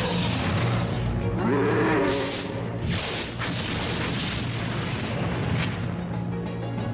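Dramatic soundtrack music with sudden booms and crashes laid over it, several heavy noisy hits in the middle of the stretch.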